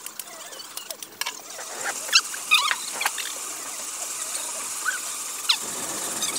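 A few short, high squeaky chirps from a small animal, spaced over several seconds, over a steady high hiss.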